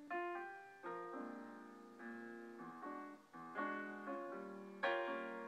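Slow piano music: chords struck about once a second, each ringing and fading before the next.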